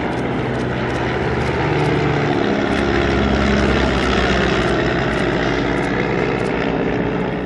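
A vintage single-engine propeller aircraft flying past with its piston engine running steadily, growing louder toward the middle, with a shift in engine pitch about two and a half seconds in.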